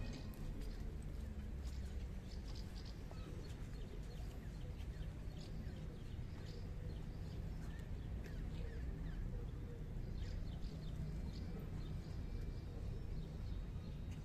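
Quiet outdoor ambience: a low steady rumble with faint, scattered short chirps and clicks.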